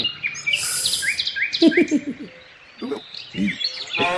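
Birds chirping in quick repeated short calls, with a few short, lower, falling animal calls in between.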